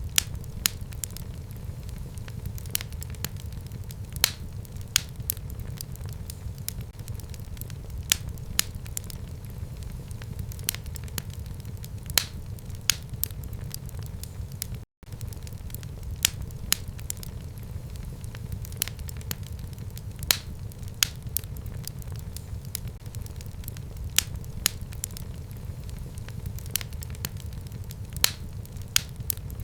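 Fire burning in a fireplace: a steady low rumble with frequent sharp, irregular crackles and pops. The sound drops out for a split second about halfway through.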